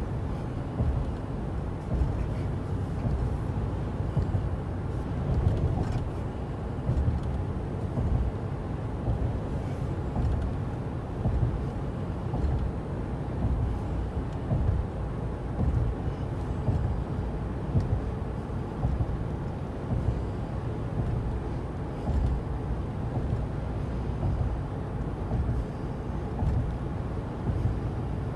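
Steady low road noise of a car driving at speed, heard from inside the cabin: tyre and engine rumble with no distinct events.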